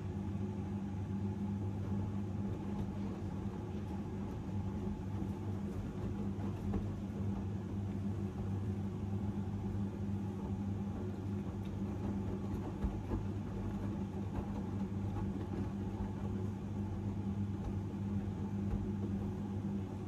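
AEG Lavamat 76850 front-loading washing machine filling during a wash: water pours into the drum and splashes onto soapy laundry as the drum turns. A steady low hum runs under the water noise.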